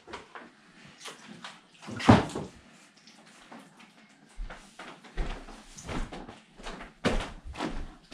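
Household handling noises: short knocks, bumps and rustles, the loudest a sharp knock about two seconds in, with more bumps near the end.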